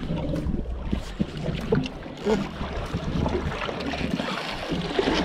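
Wind noise on the microphone, with water splashing and slapping against the boat's hull.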